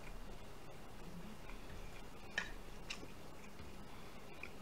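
Wooden chopsticks clicking lightly against a ceramic plate and sauce cup, a few irregular faint taps with the sharpest one a little past halfway.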